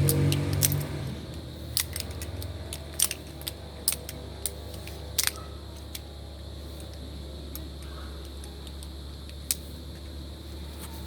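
Balisong (butterfly knife) being flipped open and closed: sharp metallic clicks of the handles and latch, in scattered groups over several seconds, with one last click near the end, over a steady low hum.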